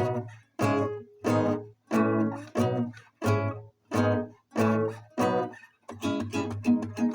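Instrumental backing track: strummed guitar chords over bass, played as short choppy stabs cut off with gaps between, about one and a half a second. About six seconds in, the strumming turns faster and continuous.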